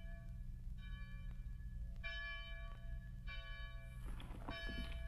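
A church bell tolling slowly, one stroke about every second and a quarter, each stroke ringing on before the next, over a low steady hum. A few short knocks come near the end.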